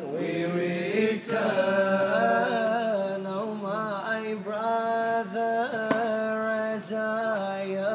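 A man chanting a lament in the noha style, holding long notes that bend and turn in slow melodic ornaments, without clear spoken words.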